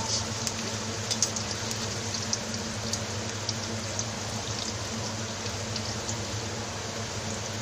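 Arrowroot-coated potato pieces deep-frying in hot oil: a steady sizzle with scattered crackles and pops, busiest in the first second or so.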